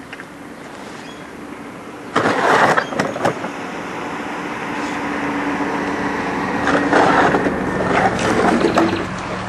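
An engine running steadily and slowly growing louder, with two short bursts of scraping noise over it.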